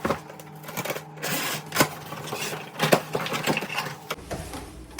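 Large cardboard shipping box being torn open by hand: rasping tears and rustling, with several sharp cracks and knocks.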